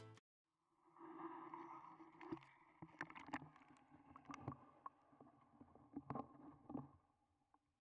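Faint, muffled sound picked up with the camera underwater in a clear pool: a low steady hum with scattered soft clicks and knocks, fading out near the end.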